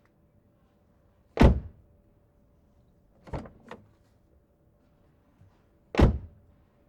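Car door slammed shut twice, each a loud solid thunk with a short low rumble of the body after it, about four and a half seconds apart; in between, two lighter clicks close together.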